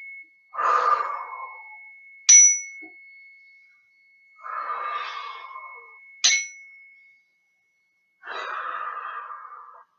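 A small hand-held metal chime struck twice with a beater, a couple of seconds in and about six seconds in. Each strike leaves one long clear ringing note. Each strike is followed by a long deep breath out, paced by the chime.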